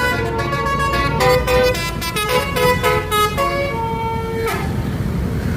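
A bus's telolet basuri multi-tone air horn plays a quick tune of short stepping notes. It stops about four and a half seconds in, leaving a low rumble.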